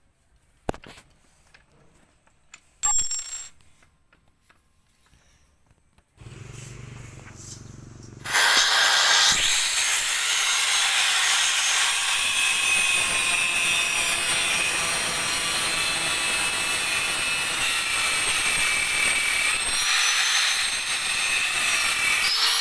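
Angle grinder mounted in a bench stand, running: after a brief noise about three seconds in, it starts about eight seconds in and then runs loud and steady with a high whine.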